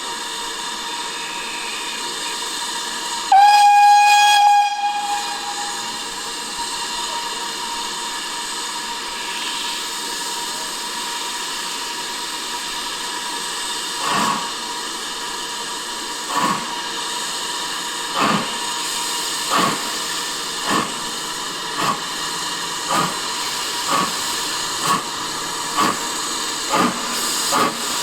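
Steam locomotive hissing steam, giving one whistle blast of about a second and a half near the start. About halfway through it starts away: its exhaust beats begin slowly and come steadily faster, under a second apart by the end.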